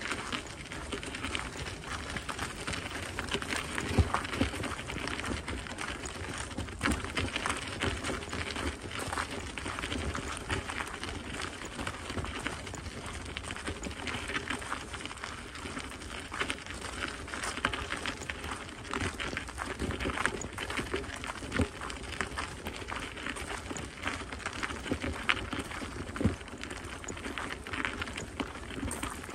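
Footsteps crunching steadily on a gravel path, with a few low thumps along the way.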